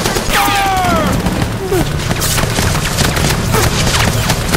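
Dense battlefield gunfire: rapid shots cracking one after another, with booms and a low rumble underneath. Several descending whistles of passing or ricocheting rounds cut through, the clearest a falling cluster about half a second in.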